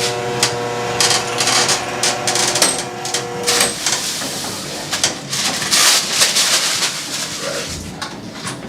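Electric chiropractic table's motor humming steadily as the table is raised, stopping about three and a half seconds in. Rustling, clicks and knocks follow as the patient shifts and turns over on the padded table.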